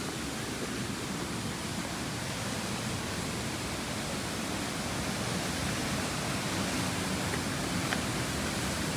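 Waterfall rushing: a steady noise of falling water that grows a little louder toward the end.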